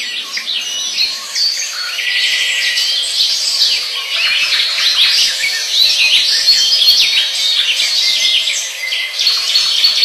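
A flock of rosy-faced lovebirds chattering: many high-pitched chirps and squawks overlapping without a break.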